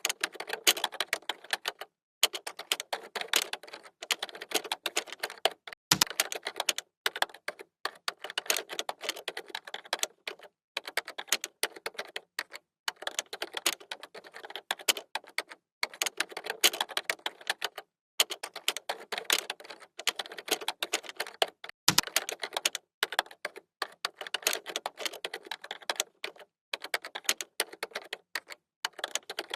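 Typing on a computer keyboard: fast runs of key clicks broken by short pauses every few seconds, with a heavier keystroke twice, about six seconds in and again near 22 seconds.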